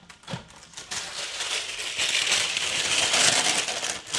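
Parchment paper crinkling as a sheet is handled and unfolded, a dense crackle that builds from about a second in and is loudest in the second half.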